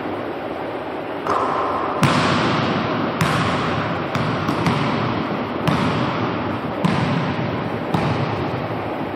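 A basketball thudding on a hardwood gym floor: several single bounces, one to a second and a half apart, the loudest about two seconds in, each followed by echo in the large gym. A steady hiss sits underneath.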